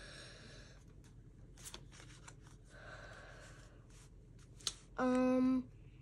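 Pokémon trading cards being handled and slid through the hands one by one: soft rustles and small flicks of card stock. About five seconds in, a voice holds a short, steady hum.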